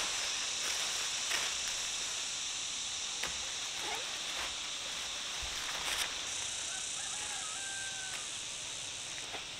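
A rooster crows once, faintly, about seven seconds in, over a steady high-pitched hiss and a few light clicks.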